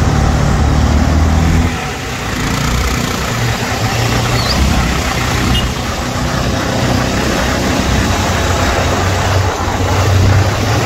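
Motorcycle engine running while riding through town traffic, under a steady rush of wind and road noise. The engine note eases off about two seconds in and builds up again later.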